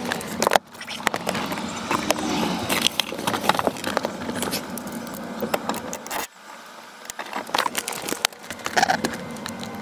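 Irregular metallic clicks and clinks of hand tools, a ratchet wrench among them, as an aftermarket short hub is bolted onto a car's steering column. The sound drops out briefly about six seconds in.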